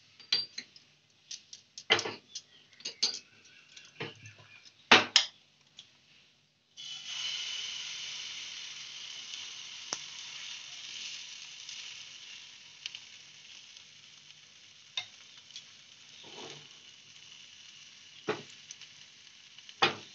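Sharp knocks and clinks of a steel ladle and bowl against a non-stick frying pan. About seven seconds in, pancake batter hitting hot ghee starts sizzling suddenly, then the sizzle fades slowly as it settles, broken by a few ladle taps.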